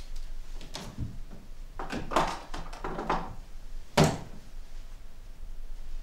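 Wooden wardrobe door and clothes on hangers being handled: several knocks and rattles, then one sharp knock about four seconds in, the loudest of them.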